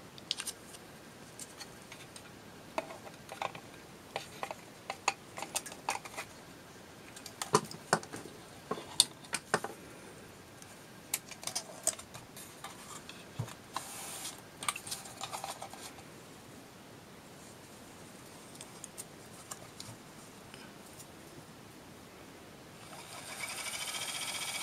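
Small plastic clicks and knocks as the flyer and bobbin of an Electric Eel Wheel Nano e-spinner are fitted back together by hand. About 23 s in, the spinner's motor starts, rises briefly in pitch and runs steadily with a slight high-pitched whine, its flyer shaft freshly lubricated with Super Lube where the bobbin touches.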